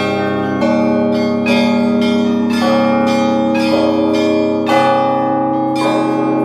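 Russian church bells ringing: several bells of different pitches struck in a rhythm, a fresh strike about once a second, each ringing on over a deep, sustained hum from the larger bells.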